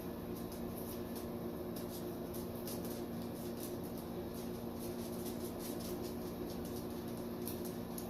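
Steady electrical hum and room noise, with faint scattered light clicks and ticks.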